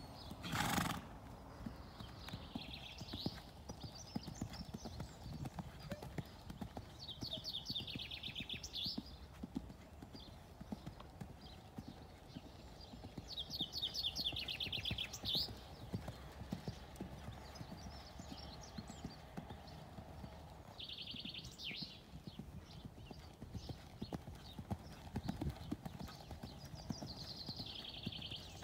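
Horse's hooves beating steadily on a sand arena as a young stallion trots and canters under saddle. A loud thump comes just under a second in, and a short high-pitched call sounds about every six seconds.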